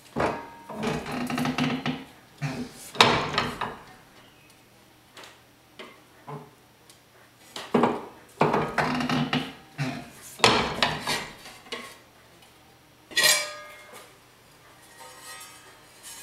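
Manual box-and-pan sheet-metal brake being worked to put slight bends into a sheet-steel patch panel: the steel bending leaf and clamp clank and the panel rattles, in several bursts of a second or two. About thirteen seconds in there is one sharp clang that rings on, and lighter rattling follows near the end.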